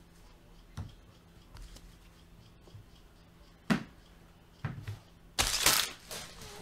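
Trading cards being handled by hand: a few scattered taps and clicks, the loudest about four seconds in, then a loud papery rustle lasting about half a second near the end.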